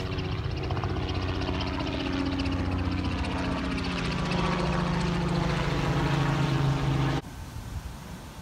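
Helicopter flying nearby, its engine and rotor running steadily with a rapid beat and growing louder, until it cuts off abruptly about seven seconds in; faint outdoor hiss after.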